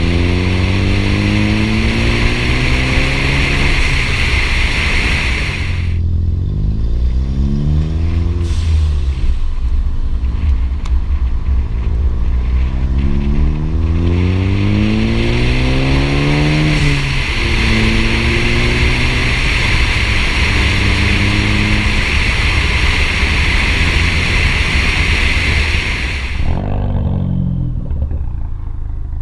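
2014 Ford Focus ST's turbocharged 2.0-litre four-cylinder, run with its muffler and resonator removed, pulling up through the gears. Its pitch climbs and drops at each shift, holds steady for several seconds, then falls away near the end. A loud hiss rides over the engine under load and cuts off abruptly about six seconds in and again near the end.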